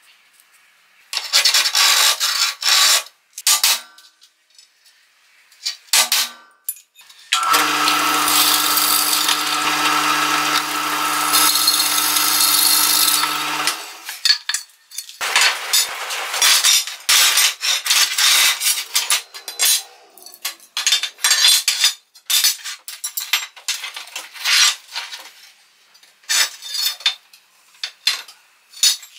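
Short scratching strokes of a steel scriber marking a rusty steel flat bar. Then a drill press runs with a steady hum and drills through the bar for about six seconds. After it stops, steel bar pieces clink and knock repeatedly on a steel-topped workbench.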